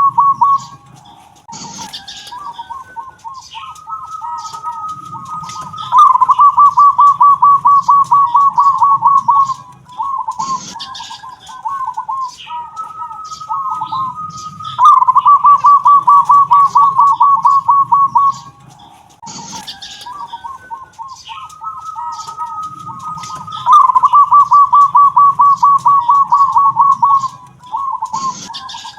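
Zebra dove (perkutut) singing its song three times, each phrase a held note followed by a loud, fast rolling trill of coos and then softer broken notes. It has the 'kung' type of voice that keepers look for in a master bird for tutoring young perkututs.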